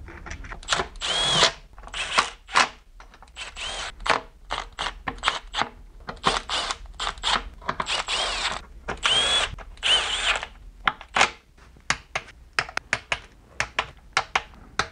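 Cordless Milwaukee Fuel power tool running intake-manifold bolts in a string of short bursts, each a whine that rises and falls in pitch, with clicks between. Near the end come quick, rapid clicks of a hand ratchet.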